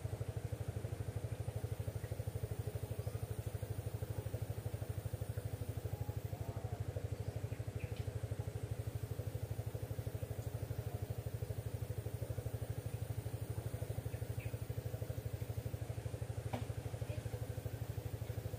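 A small engine running steadily at idle: an even, rapid low throb that does not change, with a faint steady high hum above it.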